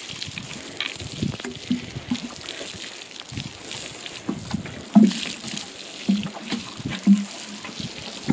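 Water sprinkling from a plastic watering can's rose onto bare soil, a steady spraying hiss. A few short soft knocks sound through it, the loudest about five seconds in.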